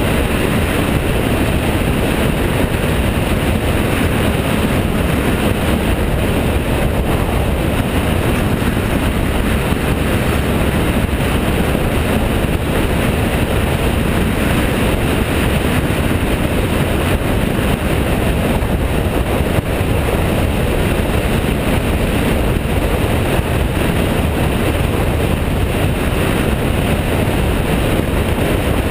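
Steady rush of wind and engine noise from a BMW F650GS motorcycle cruising at an even speed, heard from a camera mounted on the bike.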